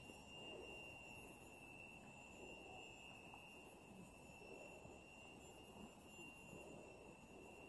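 Near silence: faint ambience with a steady, thin high-pitched tone.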